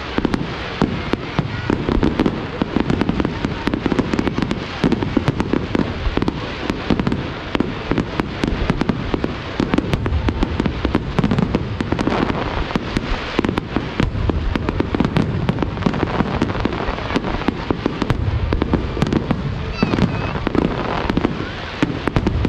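A fireworks display in full barrage: many shells bursting in quick, overlapping succession, a continuous run of bangs and crackles over a low rumble, with no pause.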